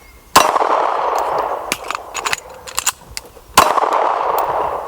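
Two handgun shots about three seconds apart, each followed by a long echoing tail, with small clicks between them: one round, a combat reload, then a second round, in a timed draw-and-reload drill.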